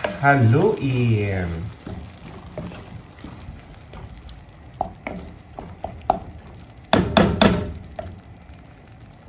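Wooden spatula stirring sardines in tomato sauce in a stone-coated nonstick pan, with scattered light scrapes and clicks over a low simmer, and a short run of louder knocks of wood on the pan about seven seconds in.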